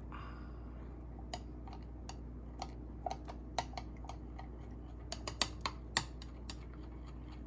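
Spoon clinking and tapping against a glass, swirling whipped coffee into cold milk. Scattered light clicks come faster and louder in the last few seconds.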